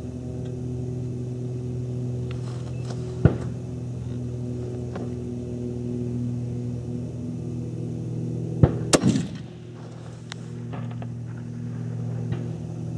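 A sharp crack about nine seconds in, the report of a Swiss K-31 rifle firing, over a steady low hum. A smaller knock comes about three seconds in.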